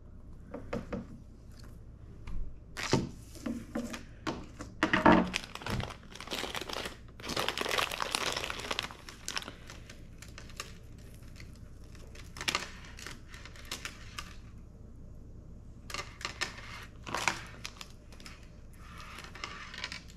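Small plastic packaging bags crinkling in short bursts as beaded jewellery is handled and taken out, with the longest run of crinkling about seven to nine seconds in.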